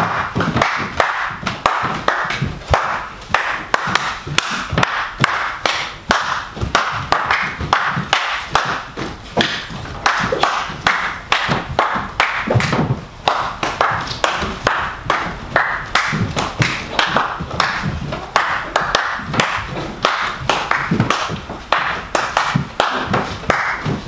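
A steady percussion beat of sharp strikes, about three or four a second, keeping an even rhythm.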